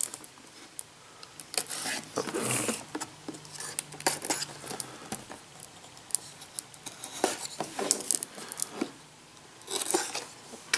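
Utility knife slitting the tape seals along the edge of a cardboard game box: short scraping strokes and light clicks and taps as the box is handled, with a longer scrape about two and a half seconds in and another near the end.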